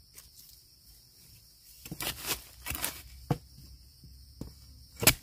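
A few irregular crunching, scraping strokes in dry bamboo litter and soil, the loudest near the end. A steady high insect buzz runs behind.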